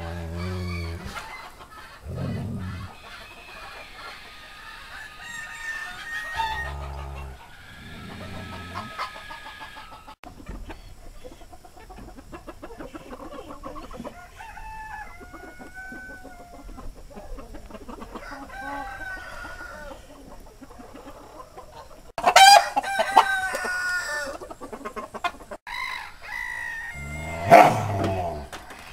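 Chickens clucking, with a rooster crowing loudly about 22 seconds in and again near the end.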